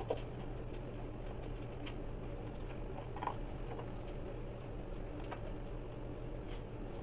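Basset hound puppies eating together from one dish on a tile floor: scattered small clicks and crunches over a steady low hum, with one slightly louder sound about three seconds in.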